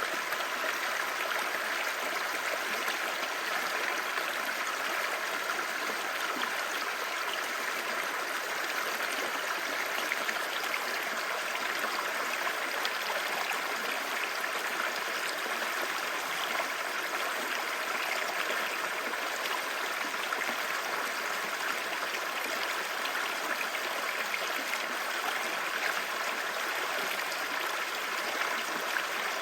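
Clear, shallow stream babbling over stones: a steady, even rush of running water that holds at the same level throughout.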